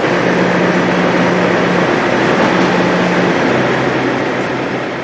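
Steady loud rushing machine noise with a low hum, beginning to fade out near the end.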